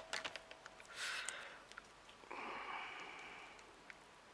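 Faint small clicks and light rustles of small craft pieces being handled, with a soft breath for about a second near the middle.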